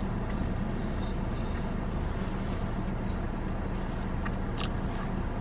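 Steady low hum of a car with its engine idling, heard from inside the cabin, with a couple of faint clicks near the end.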